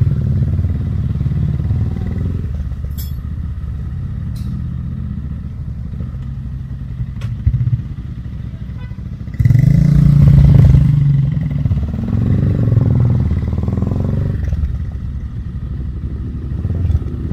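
Motorcycle engine of a GPR 250 running at idle, revved up twice a little past halfway, with a few sharp clicks in the first half.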